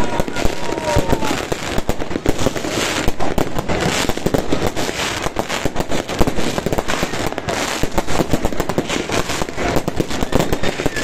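Many fireworks and firecrackers going off at once: a dense, unbroken barrage of bangs and crackling, with no pause.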